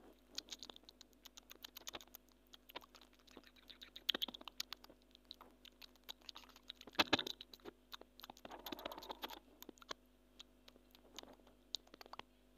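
Grey squirrel eating, with faint, irregular crunching and gnawing clicks from its teeth on the food. There are small flurries of clicks about four and seven seconds in.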